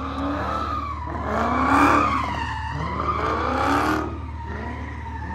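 Car tyres squealing as the car slides in a drift, with the engine revving in rising pulls underneath, heard from inside the car. It is loudest about two seconds in.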